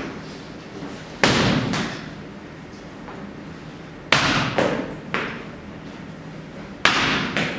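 A ball is thrown hard against the wall three times, about three seconds apart. Each hit is a loud thud followed by one or two weaker bounces on the concrete floor.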